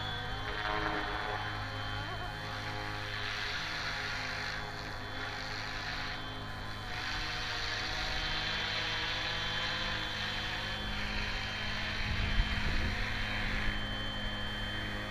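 Flywing FW450 electric RC helicopter flying overhead: the steady whine of its rotors and brushless motor, shifting slightly in pitch as it moves, over a steady low electrical hum. A few low bumps come around twelve seconds in.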